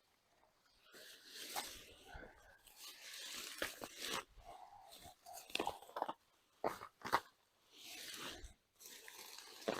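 Dry hay and straw mulch rustling and crunching as it is pulled back by hand to dig potatoes, in irregular bursts. A few sharp knocks come through, the loudest about seven seconds in.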